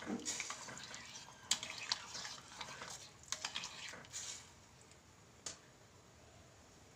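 A metal spoon stirring macaroni in a steel pot of hot water that is not yet boiling, with light swishing and a few sharp clinks of the spoon against the pot. The stirring dies away about four and a half seconds in, and there is one more clink near the end.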